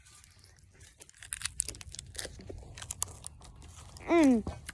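A run of irregular small crackles and clicks, then a short loud vocal sound that falls in pitch near the end.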